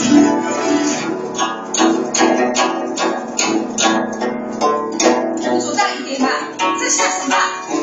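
Chinese zither played by hand: a steady run of plucked notes, several a second, each ringing on under the next.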